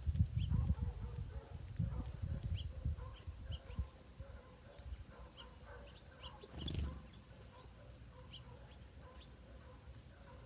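Small birds at a feeder giving short, faint high chirps scattered throughout, over low rumbling that is loudest in the first few seconds and comes once more, briefly, about two-thirds of the way through.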